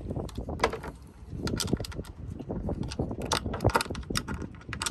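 Cordless drill-driver at the mounting screws of a stainless boat mount, snugging them up: irregular clicks and knocks of the bit and tool against the screw heads and metal flange.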